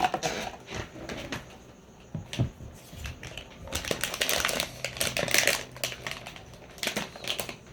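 Crinkling and rustling of a sealed plastic blind bag being handled, in a run of irregular crackles that is densest in the middle.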